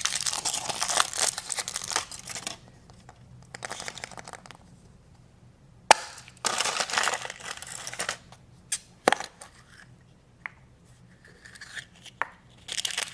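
Foil wrapper of a chocolate surprise egg being crinkled and torn off in bouts, with several sharp clicks from about six seconds in.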